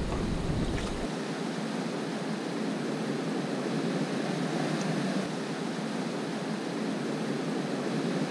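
Steady wash of surf along a rocky shore, mixed with wind on the microphone.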